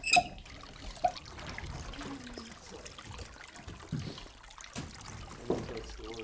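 Shallow meltwater sloshing and trickling around broken lake ice. There is a sharp knock at the start and a couple of dull knocks later on.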